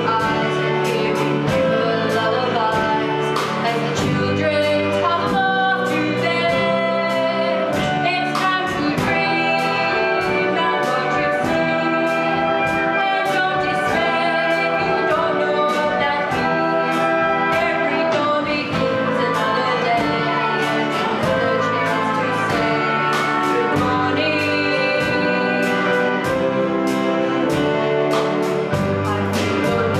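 Large children's choir singing a song with acoustic guitar accompaniment and a steady beat about twice a second.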